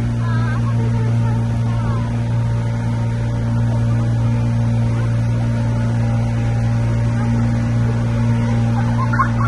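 Tour boat's engine running steadily, a loud, even low drone.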